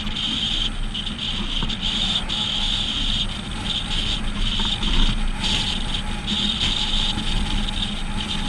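Steady driving noise of a vehicle being towed behind a pickup at road speed: tyre and wind rush with a low engine hum. A high hiss cuts in and out throughout, heard from a camera mounted outside on the towed vehicle's hood.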